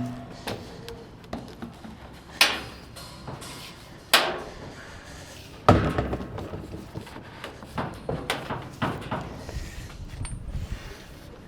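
Hard knocks and clatter of plumbing pipe and fittings being handled and set in place: four louder hits a second or two apart, then a run of lighter taps.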